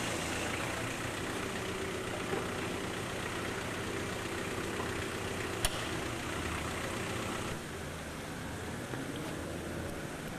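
Steady street background with a low engine-like hum, as of traffic or an idling vehicle, and one sharp click a little past the middle. The high hiss drops off about three-quarters of the way through.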